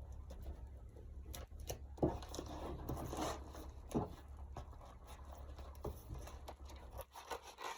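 Crinkling and rustling of a plastic bubble mailer being handled and opened, with a couple of sharp knocks about two and four seconds in.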